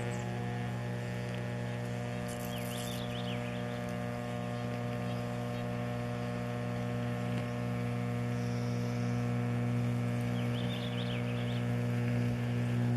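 Homemade electric arc furnace running: a steady electrical hum, with a couple of brief faint crackles.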